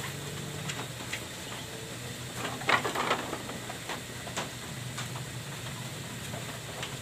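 Goat hooves knocking on a wooden pen floor and a sack rustling, with a cluster of knocks about three seconds in, over a low steady hum.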